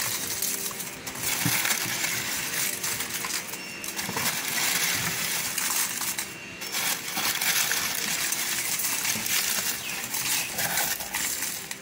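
Dry leaves crackling and rustling as a hand drops them into a plastic drum and presses them down, with many small crackles running on without a break.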